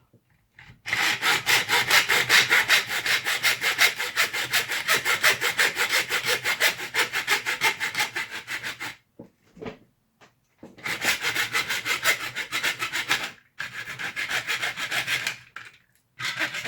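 Hacksaw cutting through a plastic blaster shell with fast, even back-and-forth strokes, about five a second. It saws steadily for about eight seconds, stops briefly, then saws again in two shorter spells.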